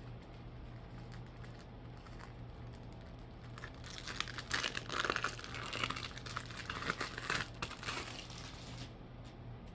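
Packaging wrapper crinkling and rustling as it is handled, starting about four seconds in and stopping shortly before the end, over a low steady hum.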